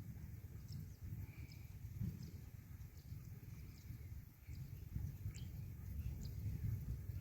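Small birds chirping, short high calls scattered throughout, over a steady low rumble.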